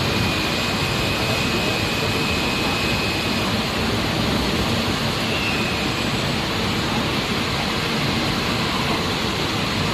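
Steady rushing noise of glass-processing machinery running, with a faint high whine for the first few seconds.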